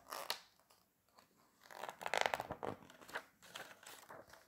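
A page of a hardcover picture book being turned by hand, the paper rustling: a short rustle at first, then a longer, louder one about two seconds in.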